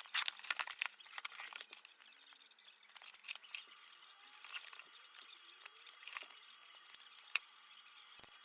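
Light rattling and clinking of small hard objects being handled: a quick cluster of clicks in the first second, then scattered single clicks and taps, one sharper click near the end.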